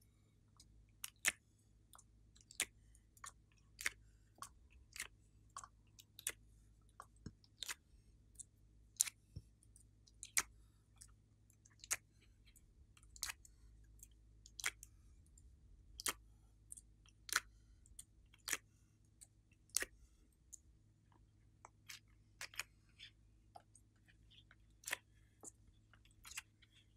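Irregular short, sharp clicks and taps, roughly one or two a second: jelly cubes being pushed out of a silicone ice-cube tray and set down in a glass dish of slime.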